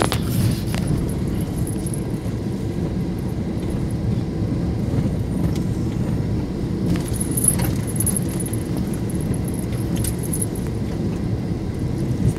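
A car driving slowly along a rough dirt track, heard from inside the cabin: a steady low engine and tyre rumble, with light rattling and clinking now and then.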